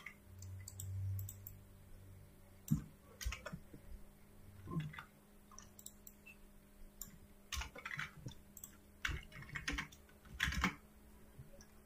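Computer keyboard typing: irregular, scattered key presses, with a quicker run of keystrokes near the end.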